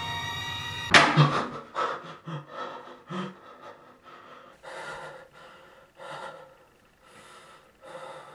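A man gasping and panting in fright: a sudden loud sound as the music cuts off about a second in, then ragged gasps that settle into heavy breaths about a second apart.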